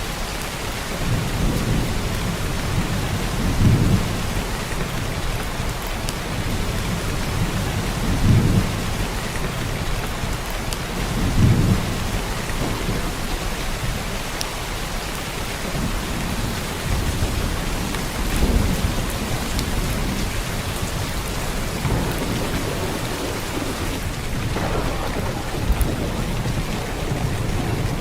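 Heavy downpour of rain, a steady dense hiss, with low rumbles that swell and fade every few seconds.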